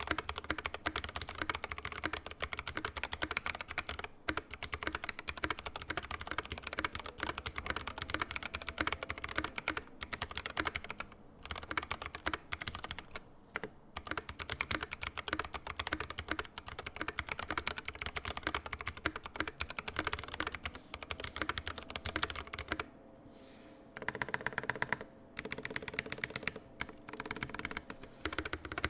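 Fast, continuous typing on a mechanical keyboard with tactile Tecsee Purple Panda switches, stock PBT keycaps and plate-mount stabilizers: a rapid stream of key clacks with a few brief pauses.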